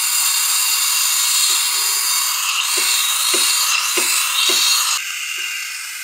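Morphy Richards espresso machine's steam wand hissing loudly into a steel pitcher of milk, frothing it, with a few brief low pops in the middle. About five seconds in, the hiss drops and thins.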